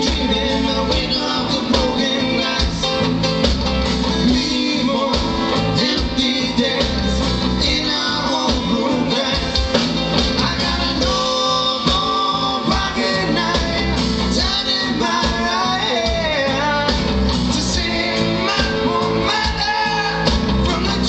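Live rock band playing, with electric and acoustic guitars and a drum kit.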